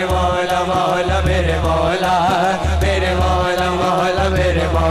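A male singer's voice singing a long, wavering, ornamented devotional line over a low pulsing drone and a steady ticking beat.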